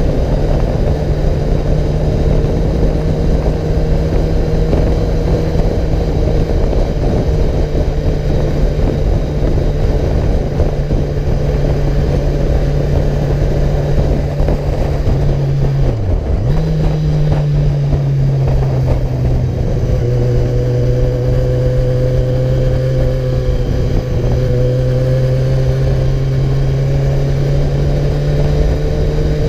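A road vehicle's engine running at a steady note under heavy low road and wind rumble. About sixteen seconds in, the note dips sharply and picks up again a little lower, as at a gear change.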